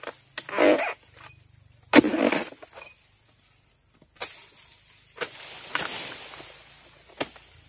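A long harvesting pole striking an oil palm's fronds and fruit bunch: two sharp hits, each followed by a short rustle, the second about 2 s in. After that come a few seconds of rustling fronds with occasional light clicks as a hand works among the leaf bases.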